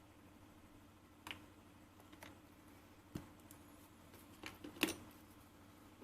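A few scattered light clicks and taps, about five, the loudest near the end, over a faint steady hum.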